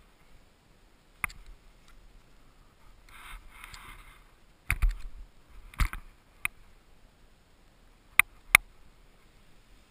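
Snowboard riding down a groomed run, picked up by a helmet-mounted GoPro: a short scraping hiss of the board on snow about three seconds in, and a scatter of sharp knocks and clicks, two close together near the end.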